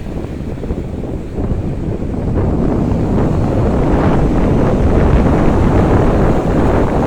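Strong wind buffeting the microphone over the rushing of a stormy sea's surf, growing louder about two and a half seconds in.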